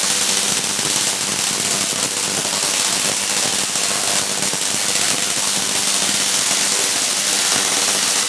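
Large Tesla coil firing, its metre-long lightning arcs crackling loudly and without a break, with a steady buzz underneath.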